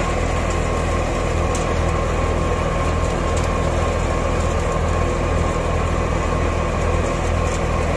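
Tractor engine running steadily under load, driving a multi-purpose thresher through its PTO shaft, with the thresher's drum and belt pulleys spinning: a loud, unbroken mechanical din with a low engine hum.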